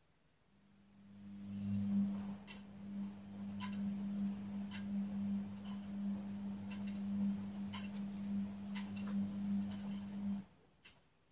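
A steady low electric hum, starting about half a second in and cutting off abruptly near the end, with scattered light clicks over it.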